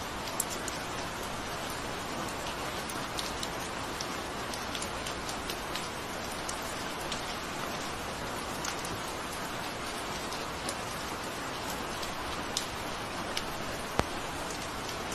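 Steady rain, a dense even hiss with scattered close drops ticking on a surface. One drop near the end is sharper than the rest.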